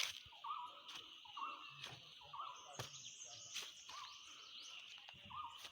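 Birds calling in short, repeated chirps about once or twice a second, with higher sweeping notes about three seconds in, over a steady high drone, and a few sharp clicks.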